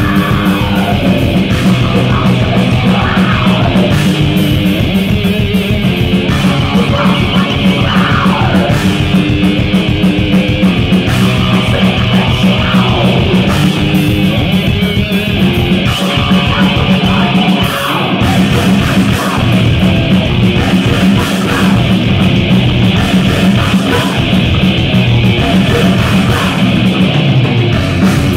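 A thrash metal band playing live at full volume: fast distorted electric-guitar riffing over bass and rapid drumming.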